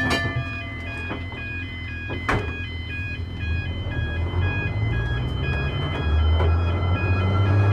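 Level crossing warning alarm sounding as a steady electronic warble of tones stepping up and down. Two sharp clunks come at the start and just over two seconds in, and a low electric tram motor hum grows louder from about four seconds in as the tram gets moving.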